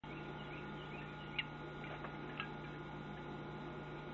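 Quiet room tone with a steady low hum and two faint clicks about a second apart as a drink can is handled.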